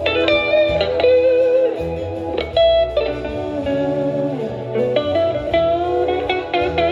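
Live band playing an instrumental passage: a guitar plays a melodic lead line with bent notes over a bass line.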